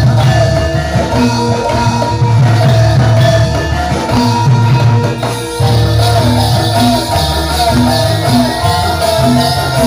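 Javanese jathilan accompaniment music: a gamelan-style ensemble with a driving low drum beat, repeating metal-keyed tones and a wavering melody line, with a brief drop about five and a half seconds in.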